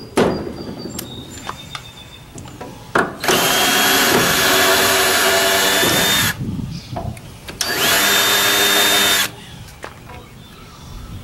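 Cordless drill driving long wood screws into 2x4 lumber in two runs: a steady whine about three seconds in lasting some three seconds, then a shorter run of under two seconds. Each run rises briefly in pitch as it starts. A few light clicks come before them.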